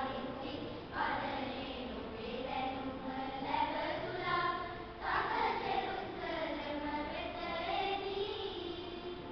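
Children's choir singing together, with new phrases starting about a second in and about five seconds in, fading away near the end.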